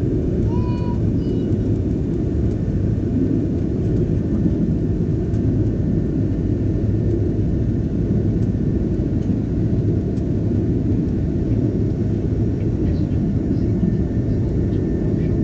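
Steady low rumble of an Airbus A330-300's engines and airflow heard inside the passenger cabin, even in level throughout, with a brief faint tone about half a second in.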